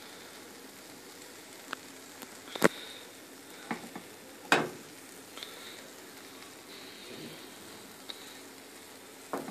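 A pancake frying in oil in a stainless steel frying pan, a steady sizzle. A few sharp clicks cut through it, the loudest about two and a half and four and a half seconds in.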